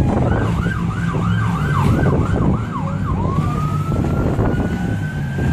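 Police siren in a fast up-and-down yelp, about three cycles a second, switching about three seconds in to a slow rising wail. A steady low engine drone runs underneath.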